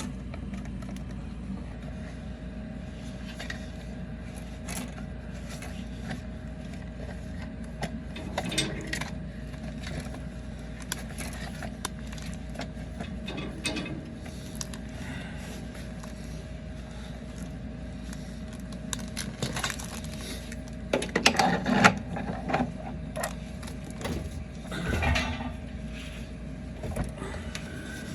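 Gas control valve being screwed by hand back into a water heater tank's threaded port, its threads freshly coated with pipe dope: scattered metal scrapes and clicks over a steady hum, with a louder stretch of clatter about two-thirds through.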